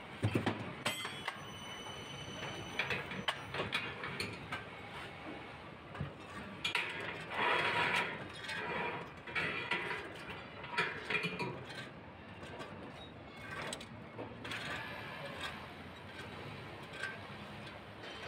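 Construction manlift (rack-and-pinion hoist) machinery working, with irregular metallic clanks and rattles that are loudest around the middle and quieter toward the end.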